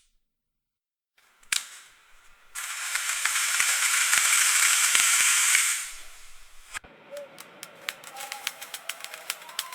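Dental chair mechanism: a single click, then a steady hiss lasting about three seconds, then after a short pause a fast run of sharp clicks and ticks with faint tones under them.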